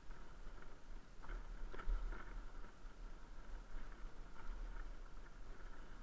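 Muffled riding noise of a Bajaj Pulsar NS 200 single-cylinder motorcycle on a rough dirt trail. A low rumble runs throughout, with a cluster of knocks and rattles from bumps about a second to two and a half seconds in.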